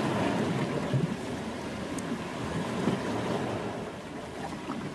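Sea waves washing on the shore, a steady rushing noise, with wind buffeting the microphone.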